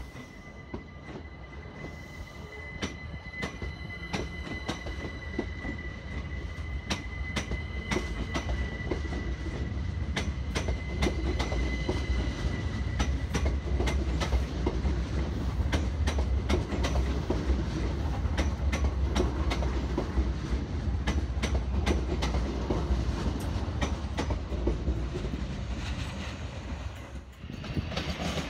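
Class 387 Electrostar electric multiple unit running past at close range: a steady high whine that fades out by about halfway, a low rumble that grows louder and holds, and frequent sharp clicks of wheels over rail joints and pointwork. Near the end the sound drops abruptly.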